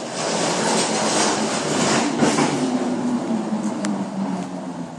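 Scania G400 truck with a refrigerated trailer driving slowly past at close range, its diesel engine running under a loud rush of mechanical and rolling noise.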